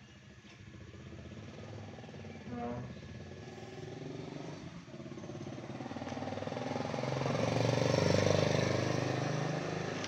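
A passing motor vehicle's engine grows louder, peaks about eight seconds in, then eases off, with a brief pitched call-like sound about two and a half seconds in.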